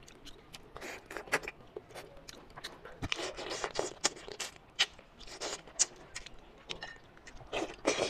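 Close-miked wet mouth sounds of eating braised manta ray: chewing and biting on soft fish and cartilage in irregular bursts.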